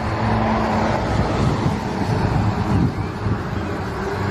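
Vehicle engine sound, a loud steady rumble with a low hum, starting and stopping abruptly like an inserted sound effect.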